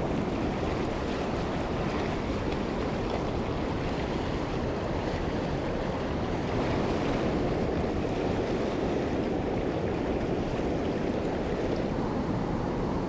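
Mountain stream water rushing and splashing over rocks, a steady noise that doesn't change.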